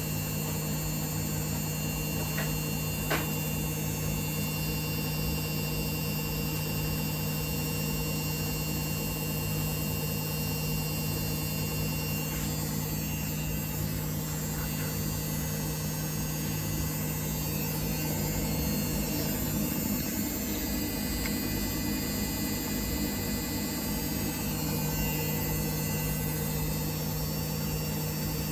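Samsung WF1700WRW washing machine running with a steady motor hum, with a single sharp click about three seconds in.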